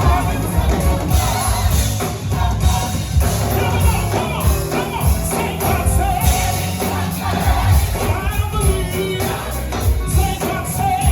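Live gospel choir singing with a full band: heavy bass and drums keeping a steady beat.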